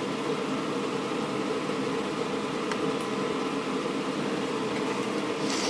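Steady whir and hum of running fans, with one faint click a little under three seconds in.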